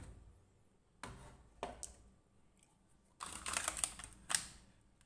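Hard plastic clicking and rattling as a top-load washing machine's rear top cover is handled and removed: a knock about a second in, a couple of clicks just before two seconds, then a dense run of rattling clicks from about three seconds.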